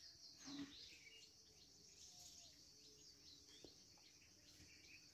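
Near silence: faint outdoor ambience with many quick bird chirps and a steady high insect hiss.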